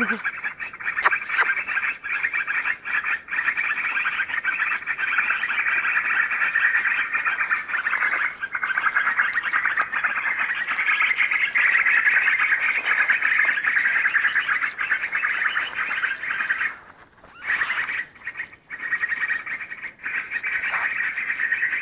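A dense, steady chorus of high-pitched animal calls from the forest, dropping out briefly about seventeen seconds in, with a couple of sharp clicks about a second in.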